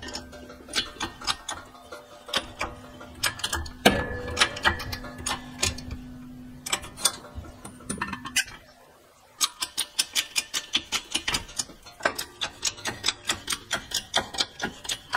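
Hydraulic shop press being pumped to drive its ram down onto a bearing, pressing it onto a sprocket shaft: a run of sharp metallic clicks with a faint steady hum in the first half. After a short lull about nine seconds in, the clicks go on steadily at about four a second.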